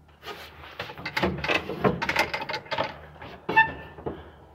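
A string of irregular knocks and rattles, with a short squeak about three and a half seconds in, over a faint steady low hum.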